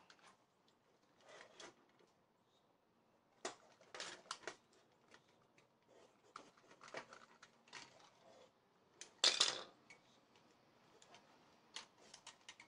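Hard plastic toy-robot leg parts being handled: scattered light clicks and taps, with one louder short scrape about nine seconds in.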